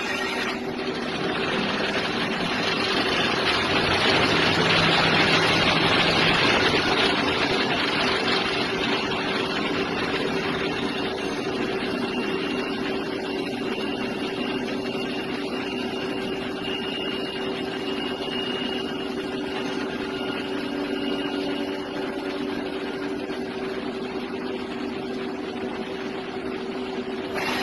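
Brass-cutting lathe running, its motor giving a steady hum. A louder rushing noise swells about two seconds in and eases off by about eight seconds, and a faint high whine comes in for a stretch in the middle.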